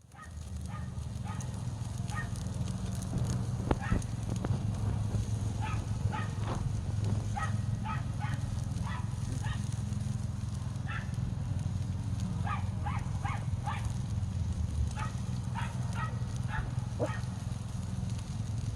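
Wood fire burning with a steady low sound and a few sharp crackles, while an animal gives short, repeated calls, often several in quick succession.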